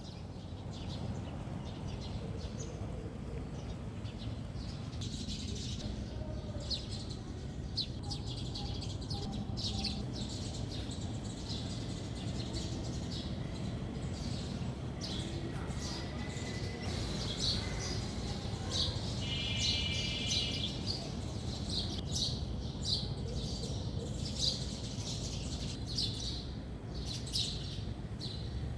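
Small birds chirping and tweeting in many short calls, over a steady low background rumble. A brief buzzy call comes about two-thirds of the way in.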